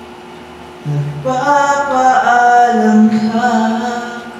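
A man singing a few long held notes, with no accompaniment, starting about a second in.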